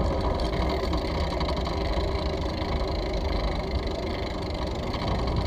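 Bicycle rolling over brick paving: a steady rumble of tyre and frame vibration picked up by a handlebar-mounted camera.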